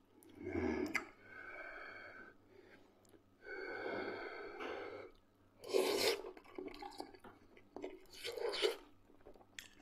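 A man eating a mouthful of fried potatoes close to the microphone: chewing, with several loud breathy puffs and intakes of breath, the two strongest near the end.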